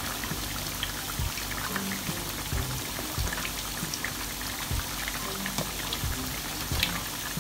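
Hot oil in a wok bubbling and crackling steadily as molded leftover-rice patties deep-fry, with background music underneath.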